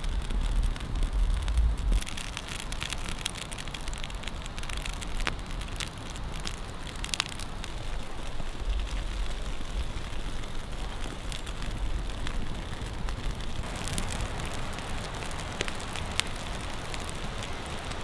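Birch bark and small kindling crackling and snapping as a freshly lit fire catches, over a steady hiss. A low rumble comes and goes, at the start and again for a few seconds in the middle.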